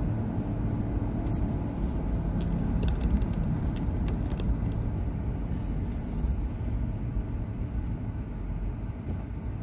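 A car's engine and tyre noise heard from inside the cabin while driving: a steady low rumble.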